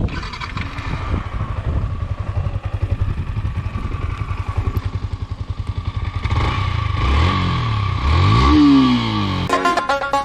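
Yamaha R15M's 155 cc single-cylinder engine idling with an even exhaust beat, then revved from about six seconds in, the pitch climbing to a peak and falling back. Music starts near the end.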